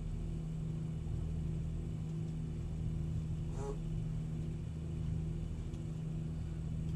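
A trawler's diesel engine running steadily under way at cruising speed, heard from inside the boat as a constant low drone with a faint regular pulse over it.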